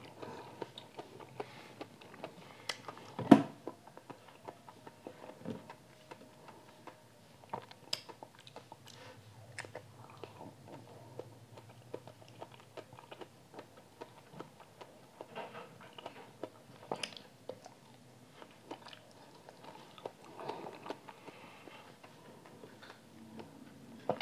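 Close-miked wet chewing and biting of dragon fruit, with many small mouth clicks. One much louder sharp knock comes a little over three seconds in.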